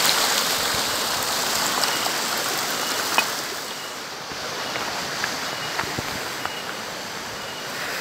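Hot spring water pouring down a mineral-stained rock face: a steady rushing that becomes fainter about four seconds in, with a few light knocks.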